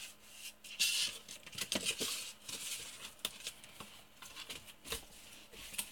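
Faint, scattered clicks and short scraping rustles of hands handling metal parts of a small lathe near the chuck.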